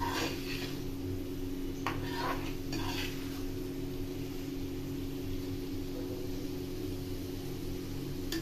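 Metal spatula scraping and stirring through thick masala and fried egg halves in a pan, with three short strokes in the first three seconds and softer stirring after, over a steady low hum.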